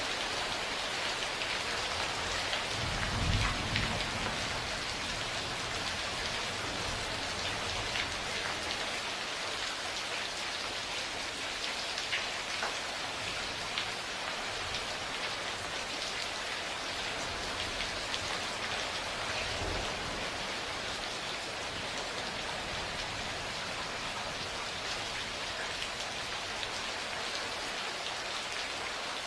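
Steady heavy rain falling, a dense even patter with scattered drop ticks. A low rumble of thunder about three seconds in, and a fainter one near twenty seconds.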